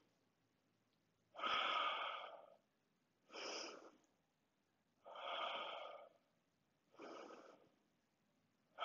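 A woman breathing slowly and audibly, about five breaths, longer ones of about a second alternating with shorter ones.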